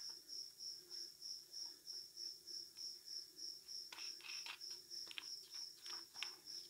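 A cricket chirping steadily, about three high chirps a second. From about four seconds in come faint clicks of hard plastic parts being handled.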